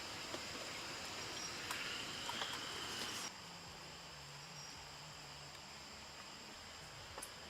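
Steady high-pitched drone of insects, with a hiss and a few light clicks under it; the hiss cuts off suddenly a little over three seconds in, leaving the insect drone.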